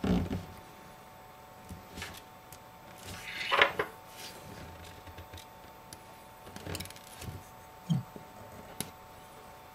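Hands handling a replacement iPhone screen assembly and its small metal parts on a desk: scattered light knocks and clicks, with one louder rustling scrape a few seconds in.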